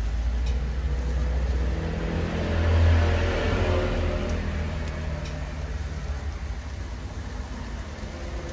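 Small pieces of chicken sizzling as they fry in hot oil in a pan while more pieces are dropped in, the sizzle swelling about three seconds in, over a steady low rumble.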